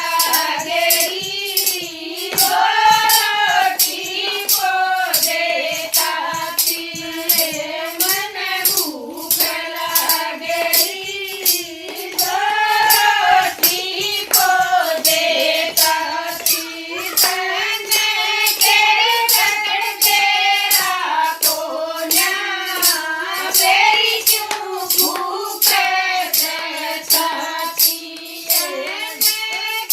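Singing of a Haryanvi devotional bhajan, a flowing melody carried over a steady percussion beat of sharp strokes, about two a second.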